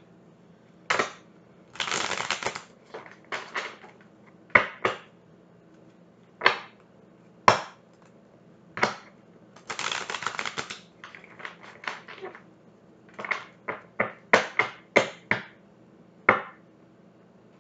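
Tarot cards being shuffled and handled: a string of sharp card slaps and clicks, with a couple of longer rustling shuffles about two seconds in and again about ten seconds in.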